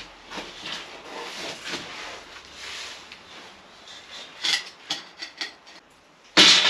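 Steel barred gate being worked by hand: scattered scraping, rubbing and light knocks of metal as it is shifted in its frame. Near the end comes a sudden, much louder scrape and rattle as the gate is moved.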